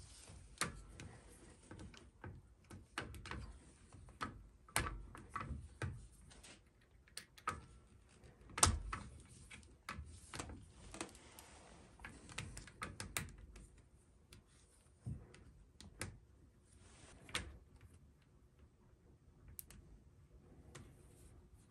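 Plastic parts of a reverse-osmosis filter being handled: irregular sharp clicks and knocks as plastic tubing is pushed into the quick-connect fittings on the filter housings, with the loudest knock about nine seconds in.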